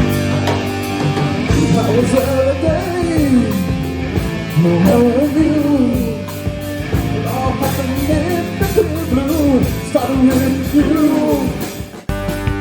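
Rock band playing live: electric guitars, bass and drums under a lead voice singing a wavering melody. The sound cuts out abruptly near the end and picks up again with a different passage.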